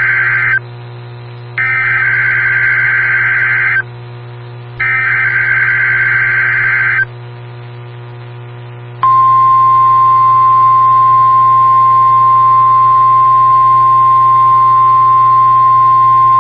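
NOAA Weather Radio SAME alert header for a Required Weekly Test: the end of one burst of screeching digital data, then two more identical bursts, each about two seconds long and a second apart. About nine seconds in, the steady single-pitch 1050 Hz weather radio warning tone starts and holds. A low hum runs underneath.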